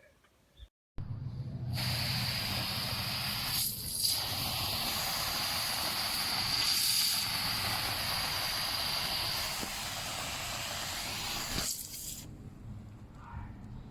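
Greenworks GPW1501 electric pressure washer spraying a van's side: a steady, loud hiss of the water jet over a low hum, lasting about ten seconds before it cuts off as the trigger is released.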